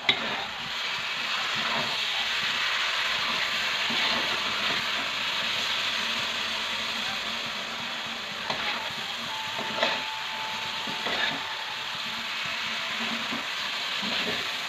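Sweet potato cubes sizzling steadily in a hot wok as they are stir-fried, with a metal spatula scraping and knocking against the wok a handful of times.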